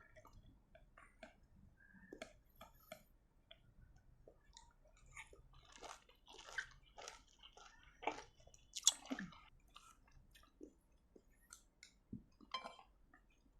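Close-miked chewing of lime rujak with sambal: irregular crunches and wet mouth smacks, faint, thickest and loudest in the middle of the stretch.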